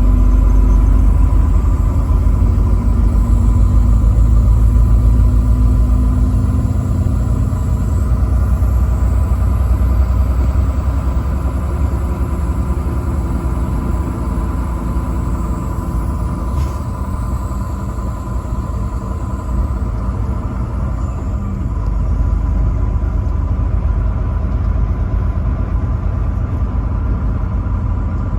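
Truck driving on the highway: steady low engine and road rumble, a little louder over the first several seconds.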